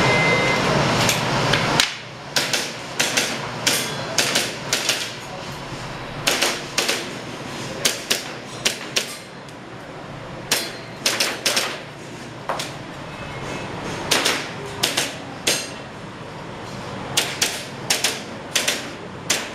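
A short electronic beep, typical of a shot timer's start signal, under loud noise that stops about two seconds in. Then an airsoft pistol fires a course of fire: sharp shots, many in quick pairs, with short gaps between groups.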